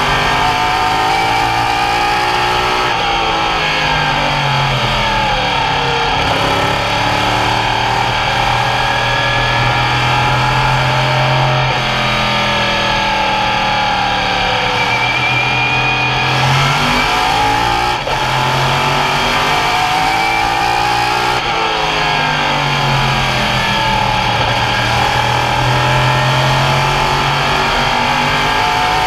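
Open Modified race car's V8 engine at racing speed. Its pitch falls as the driver lifts for the turns and climbs again on the straights, repeating several times without a break.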